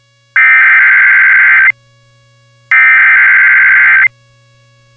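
Emergency Alert System SAME header from NOAA Weather Radio: two loud, buzzy digital data bursts, each a little over a second long and about a second apart, over a faint steady hum. The bursts are the coded header that opens an alert broadcast.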